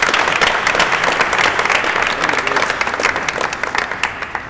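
Audience applauding, a crowd of clapping hands that fades out near the end.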